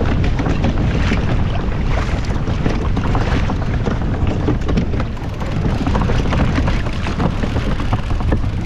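Strong wind buffeting the microphone, with choppy waves splashing and slapping against a kayak hull.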